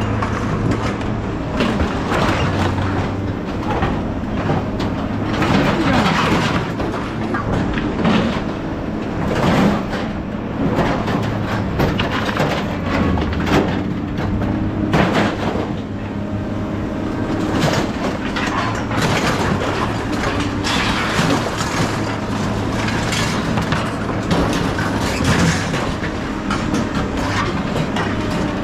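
A vehicle running steadily, with loose metal knocking and rattling irregularly over the engine sound.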